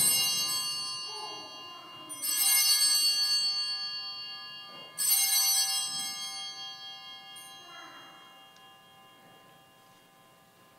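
Altar bells rung three times at the elevation of the chalice: a shaken ring at the start, another about two seconds in and a third about five seconds in, each left ringing and fading away toward the end.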